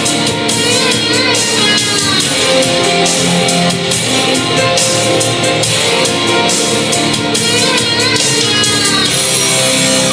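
Instrumental introduction of a pop-rock song: guitar and drum kit playing with sustained melodic lines and steady cymbal beats.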